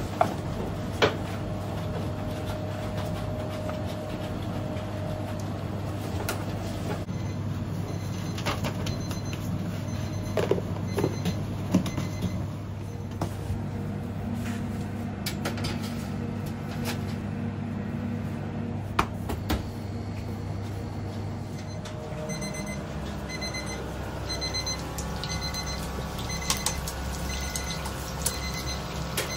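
Working bakery kitchen: a steady machine hum with scattered clicks and knocks. About two-thirds of the way through, an electronic beeper starts beeping over and over, about one and a half beeps a second.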